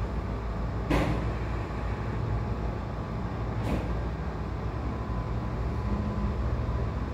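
Steady low rumble of a moving vehicle heard from inside, with two short sharp knocks, about a second in and again near four seconds in.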